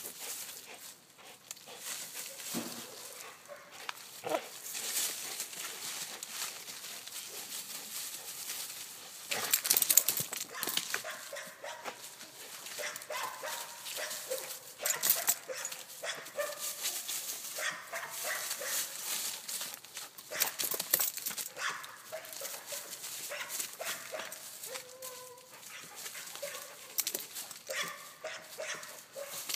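Pit bull tugging and thrashing on a springpole rope toy, making short growling sounds, while dry leaf litter crunches and rustles under its feet in frequent short crackles.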